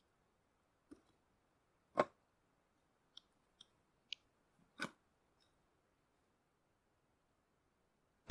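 A few sharp wooden knocks, from split birch firewood being handled and set down around a stump chopping block. The loudest comes about two seconds in and another near five seconds, with light clicks in between and a heavy thump right at the end as a fresh round lands on the block.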